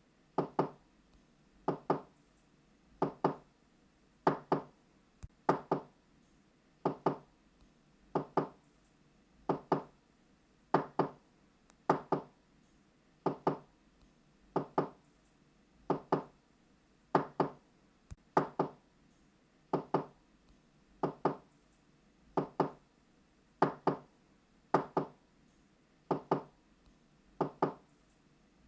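Knocking on a door in repeated double knocks ("knock knock"), two quick raps a fraction of a second apart, with one pair a little more than a second after the last.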